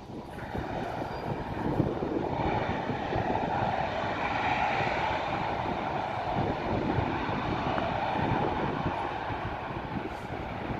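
Aircraft jet engines running, a steady noise that grows louder in the first second or two and then holds.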